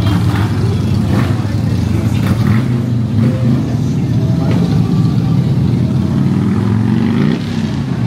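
Street traffic: motor vehicle engines running with a steady low rumble.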